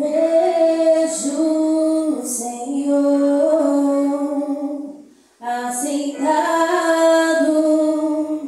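A woman singing a worship song in long held notes, with a short breath pause about five seconds in.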